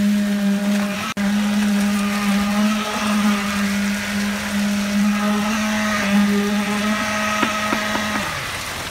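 Electric concrete poker vibrator running with a steady high hum, briefly broken about a second in; near the end its pitch drops as it winds down.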